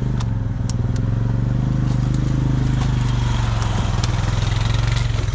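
A vehicle engine idling steadily, its pitch lifting slightly for a second or two as it is revved lightly, with a few faint clicks over it.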